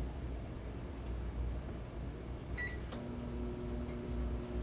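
Microwave oven keypad beeping once as it is started, then the oven starting to run about three seconds in with a steady hum.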